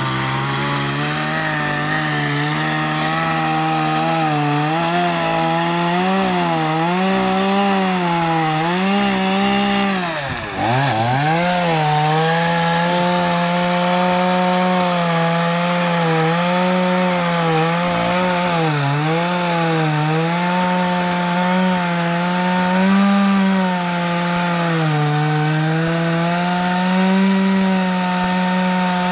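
Kawashima two-stroke chainsaw running at high revs while cutting into the base of a tree stump, its pitch wavering up and down as the chain bites into the wood. About ten seconds in the revs drop sharply for a moment and then climb back up.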